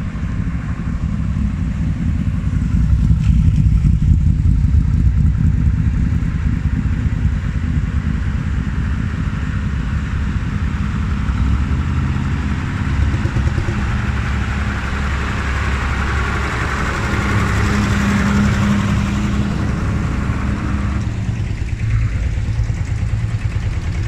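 A motorcycle rides past, loudest a few seconds in, followed by the engines of vintage tractors running at low speed as they drive slowly by one after another.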